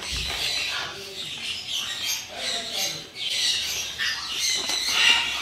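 Pet birds squawking and chirping, many shrill calls overlapping without a break.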